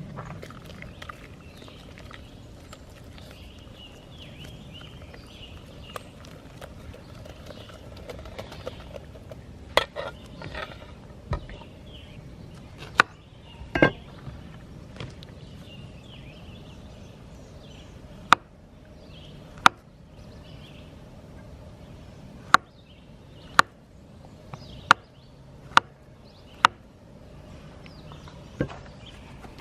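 A series of sharp knocks or strikes, scattered at first, then five in a row about a second apart near the end.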